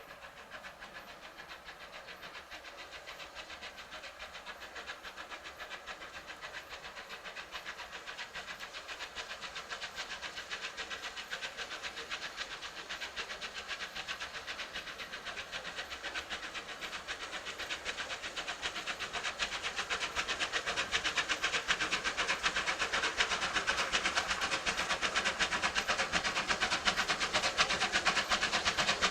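Steam locomotive hauling a train as it approaches, growing steadily louder, with a fast run of fine repeated beats and a hiss of steam.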